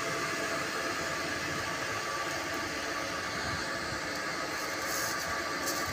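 A steady mechanical drone: an even hiss with several steady hum tones running under it, unchanging throughout.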